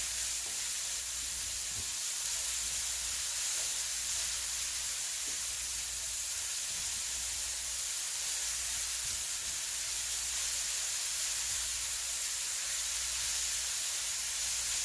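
Grated cauliflower sizzling steadily as it fries in hot oil in a pan.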